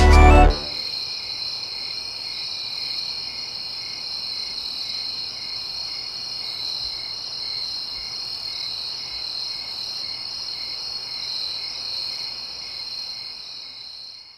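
Music cuts off about half a second in, then a chorus of chirping insects: a steady high trill with a lower chirp repeating evenly beneath it, fading out near the end.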